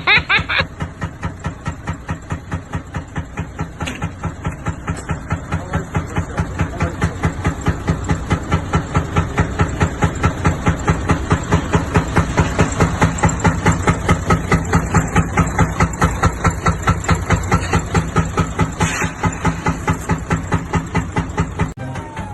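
Mercedes-Benz Actros truck's diesel engine idling, with an even pulsing of about four to five beats a second.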